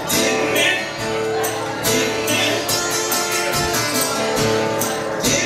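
Live acoustic performance of a gospel song: acoustic guitar and a woman singing, over sharp percussion hits on a steady beat of about two a second.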